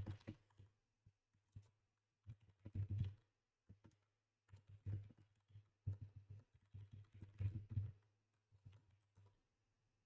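Typing on a computer keyboard: quick, irregular runs of key clicks with short pauses between them, over a faint low hum.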